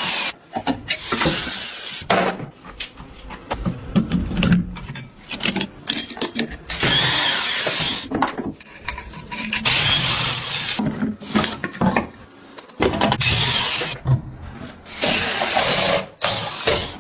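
Workshop tool sounds in short bursts: a power tool running in spells of a second or two, broken by sharp metallic clicks and knocks, each spell starting and stopping abruptly.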